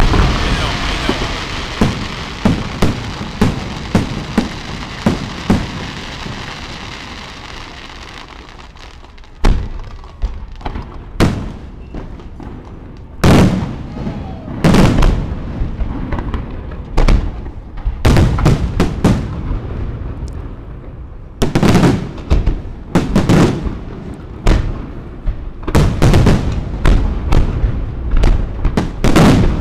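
Aerial firework shells bursting in a professional display: a dense crackle with many quick bangs that fades away over the first several seconds, then a long run of separate sharp booms, each trailing off in an echo.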